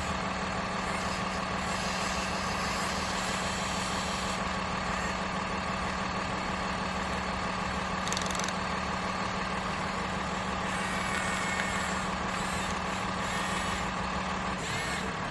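Radio-controlled construction toy running, a steady machine hum with a constant low tone and a higher whine.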